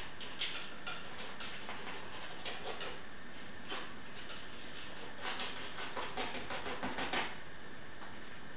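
Palette knife scraping and spreading thick paint across a stretched canvas: a series of short, irregular strokes, busiest in the second half, over a steady background hiss.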